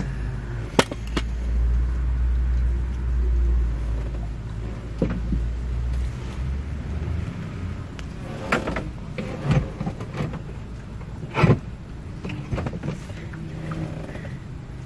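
Scattered sharp clicks and clinks of hand tools on an antenna cable and its connector, the loudest about a second in and again near the end. Under them a low rumble fades out about halfway through.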